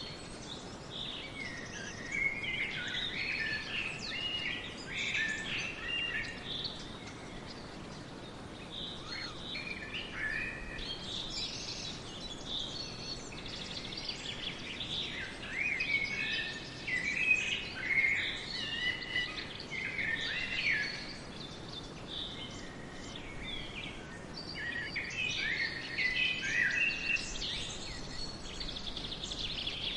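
Several birds singing and chirping in overlapping phrases, busier in spells and quieter in between, over a faint steady hiss of forest background.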